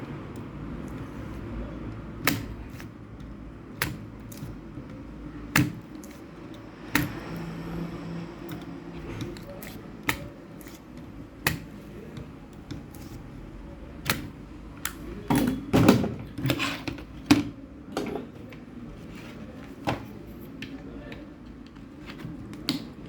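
Irregular sharp clicks and taps of small hand tools working on a charger's circuit board while a burnt resistor is being desoldered, with a quick cluster of clicks about two thirds of the way through, over a faint steady hum.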